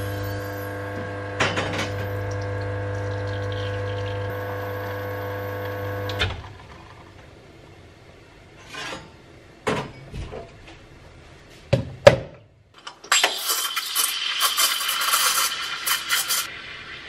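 La Marzocco espresso machine: a steady motor hum for about six seconds that then stops, a few knocks of mug and metal parts, then about three seconds of loud hissing water discharged from the machine.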